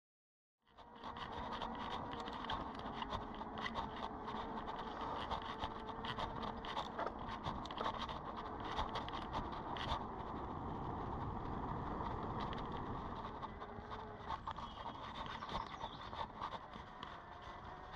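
Electric mountain bike ridden over a dirt track: tyre noise with a constant run of small knocks and rattles over bumps, and a steady hum underneath. It begins just under a second in.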